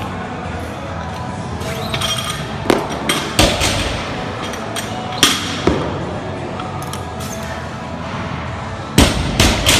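Deadlift barbell loaded with rubber bumper plates knocking down on a rubber gym floor, sharp thuds with a metallic plate-and-collar clank. They come in three groups of two or three, about three, five and nine seconds in.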